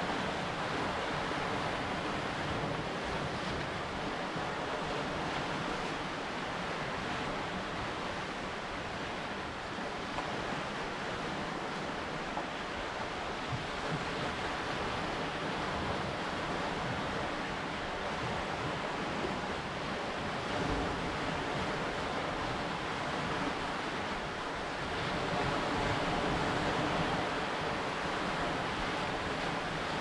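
Lake Superior waves washing onto a rocky shoreline, a steady rushing surf with wind, swelling a little louder about twenty-five seconds in.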